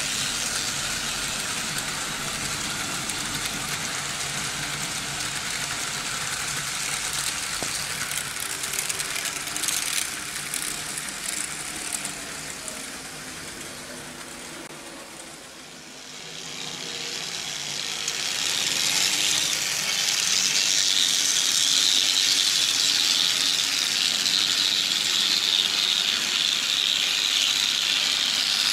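Märklin H0 model trains running on tinplate M track: a steady mechanical clatter and whir of wheels on the metal rails and the locomotives' motors. It fades to its quietest about halfway through, then grows loud as a Märklin V 200 diesel model with two motors runs close past.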